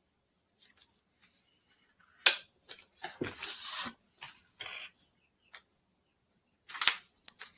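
Handling noises of an eyeshadow palette being unpacked and opened: rustling of its packaging and several sharp clicks.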